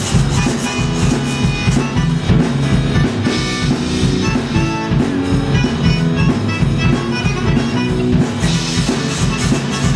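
Live band with accordion, drum kit and electric bass playing a steady dance rhythm, with rubboards (frottoirs) scraped along in time.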